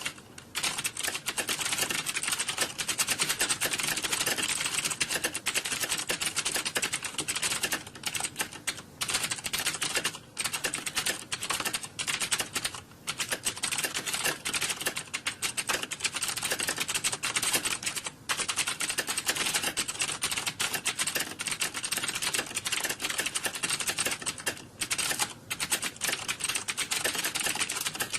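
Fast, continuous typing on a computer keyboard: a dense run of key clicks with a few brief pauses, the pace of a timed typing test.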